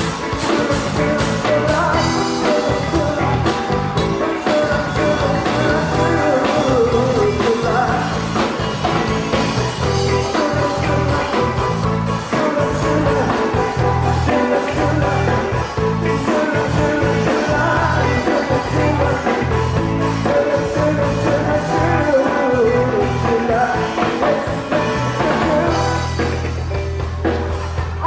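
Live band of drums, bass, electric guitar and keyboard playing an upbeat rock-and-roll pop song, with singing over it.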